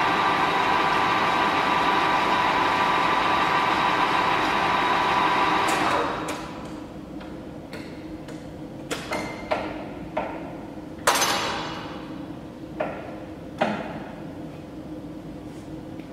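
Ernault Somua Cholet 550 lathe running, its spindle and three-jaw chuck turning with a steady mechanical whine, then switched off: the running noise drops away about six seconds in. After that come a string of sharp metallic knocks and clanks, the loudest about eleven seconds in with a short ringing tail.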